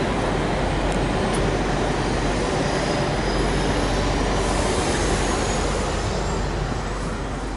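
Steady rumble of a semi truck's engine and road noise, easing off near the end.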